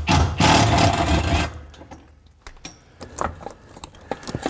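Cordless ratchet running for about a second and a half as it spins a bolt out of the exhaust, followed by light metallic clicks and clinks of the loosened parts and tool.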